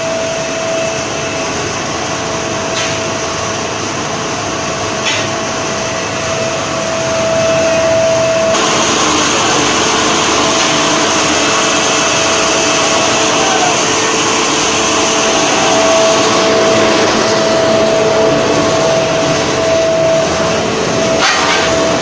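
Cupola furnace air blower running: a loud, steady rushing noise with a steady high whine over it, getting louder and brighter about eight and a half seconds in.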